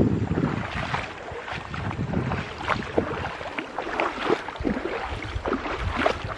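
Stream water splashing and gurgling in irregular little bursts.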